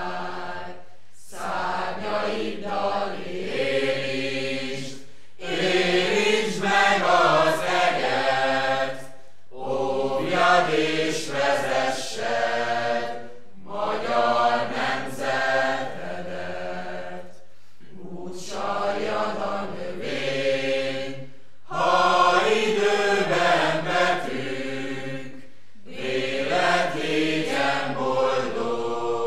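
A group of voices chanting a song together in phrases of about four seconds, with a short pause for breath between each phrase.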